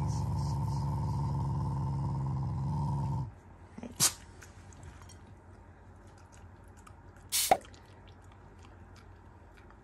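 Black Shiba Inu growling steadily and low for about three seconds while baring its teeth at a hand, an affectionate growl rather than an angry one. Two short sharp noises follow, about three and a half seconds apart, the second the loudest moment.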